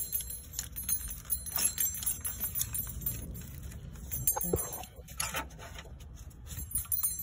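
Scattered light clicks and metallic clinks of hands working among hoses, connectors and parts in a car's engine bay, over a steady low rumble.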